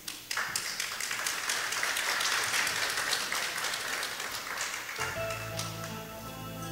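Audience applauding, then about five seconds in, instrumental music with sustained, layered tones begins as the clapping dies away.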